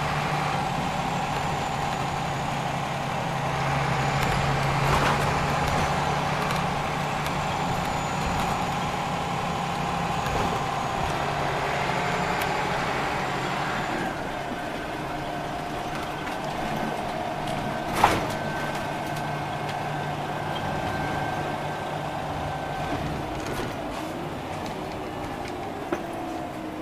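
Scania OmniLink CL94UB city bus heard from inside the passenger saloon: a steady hum of engine and running gear while driving, with a single sharp click about two-thirds of the way through. Near the end the hum falls in pitch as the bus slows for a stop.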